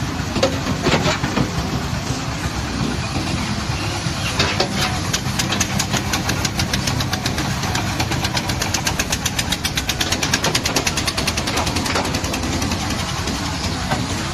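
Heavy diesel construction machine running loudly, with a rapid, even clatter of about seven knocks a second through the middle.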